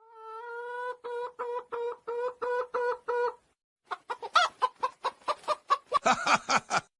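Chicken clucking sound effect: a held note that breaks into a steady run of about three clucks a second, then after a short pause a faster, rougher burst of cackling.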